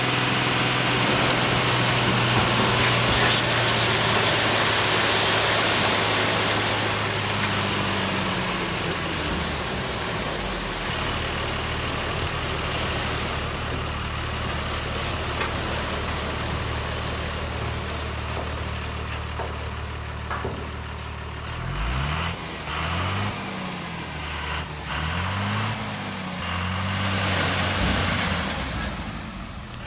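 An engine idling with a steady low hum, then revved up and down four or so times near the end.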